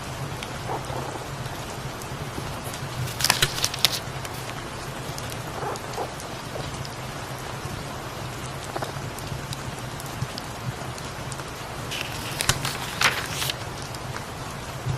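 Steady rain falling on a surface, with a low steady hum underneath. Two short papery rustles, about three seconds in and again near the end, fit book pages being turned.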